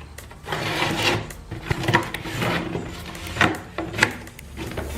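Box cutter slicing open the packing tape on a cardboard shipping box and the cardboard being handled, with rasping scrapes and a few short sharp knocks.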